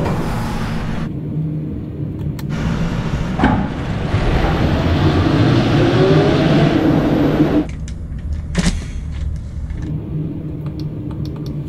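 Battery-electric Mercedes-Benz eActros 600 truck running on the rollers of an end-of-line roller test stand: a steady rumble of tyres turning on the rollers, swelling into a louder rush with a rising whine as the speed builds, which cuts off suddenly about eight seconds in.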